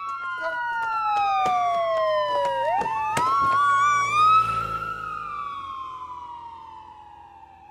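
Police siren wailing, its pitch sliding slowly down and back up, with a second siren sweeping over it about three seconds in. Both fade away over the last few seconds. A few sharp knocks sound in the first half.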